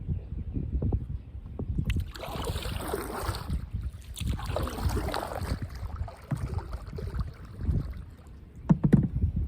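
Canoe paddle strokes swishing through the water, two longer strokes a couple of seconds in, over steady wind rumble on the microphone, with a few knocks near the end.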